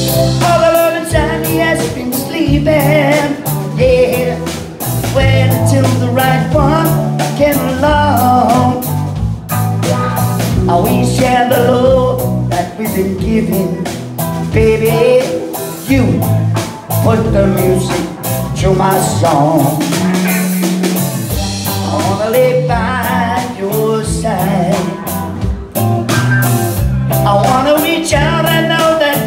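Live band music: a man singing lead over two electric guitars, a bass guitar and a drum kit.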